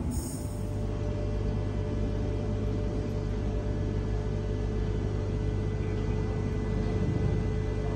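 Steady low hum of a stationary Sydney Trains Millennium (M set) electric train, with two faint steady tones held throughout.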